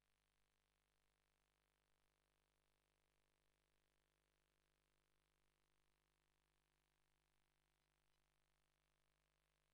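Near silence: only the recording's faint noise floor, with no events.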